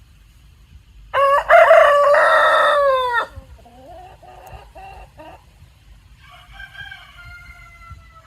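Rooster crowing: one loud crow about a second in, lasting about two seconds. It is followed by several quieter short calls and a fainter crow that falls in pitch near the end.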